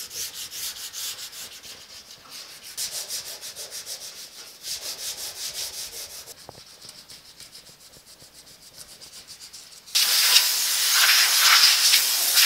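Hand sanding with sandpaper on a primed steel truck door jamb: rhythmic back-and-forth scraping strokes that grow fainter. About ten seconds in, a compressed-air blow gun starts a loud steady hiss, blowing sanding dust off the panel.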